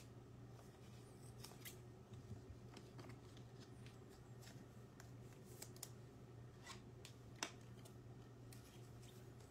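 Near silence: a faint steady hum with scattered soft clicks and ticks, one slightly louder about seven and a half seconds in.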